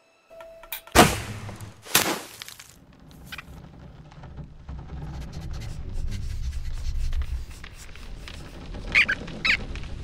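Animated-film sound effects: two loud sharp cracks about a second apart, then a low steady rumble with light rustling. Near the end come two short squeaky animal-like calls.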